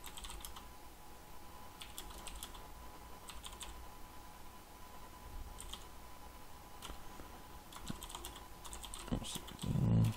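Typing on a computer keyboard in short bursts of key clicks with pauses between them. Just before the end there is a short, louder low sound.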